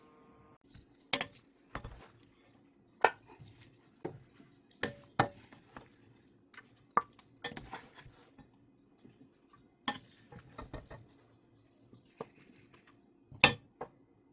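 Kitchen utensils knocking and clinking against pots and dishes in irregular single taps, a dozen or so, the loudest near the end, over a faint steady hum.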